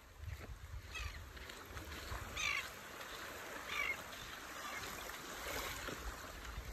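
Low wind rumble on the microphone aboard a small open boat on the water, with a few short high chirps scattered through.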